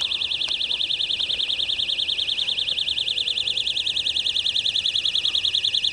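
Electronic alarm sounding continuously: a high-pitched warbling tone that pulses about a dozen times a second without a break.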